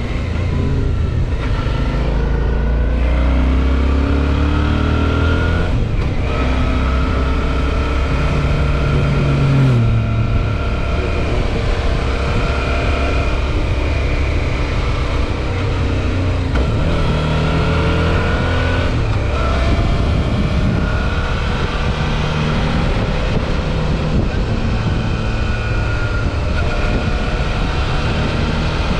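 Suzuki V-Strom 650 XT's V-twin engine running on the move, its pitch rising and falling as it accelerates and shifts gears, over a steady rush of noise.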